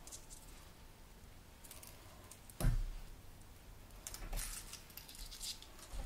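Faint rustling and scratching of braided fishing line and a hard plug lure being handled as a knot is pulled tight, with a single knock about two and a half seconds in.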